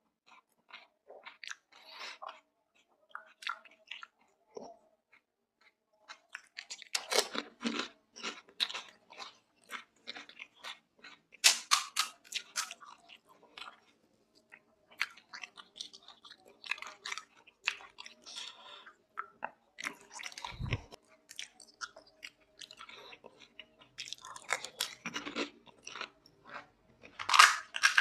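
Close-up crunching and chewing of pani puri: crisp hollow fried puri shells being bitten and crushed in the mouth, in irregular clusters of crunches. The loudest clusters come about seven seconds in, around twelve seconds and near the end, with a single dull thump about twenty seconds in.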